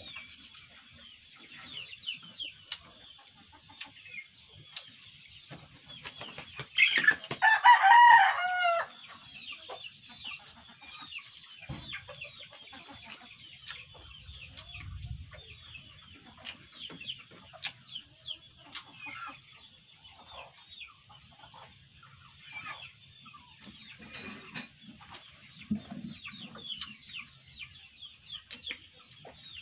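A rooster crows once, a loud wavering call of about two seconds starting about seven seconds in. Throughout, there are faint, frequent high-pitched chirps and clucks from chickens.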